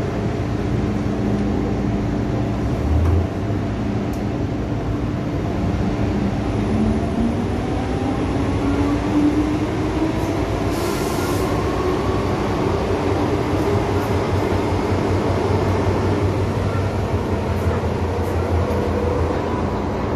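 MTR M-Train electric multiple unit heard from inside the carriage as it pulls away and accelerates: steady hum at first, then a traction-motor whine rising steadily in pitch. A brief hiss about eleven seconds in.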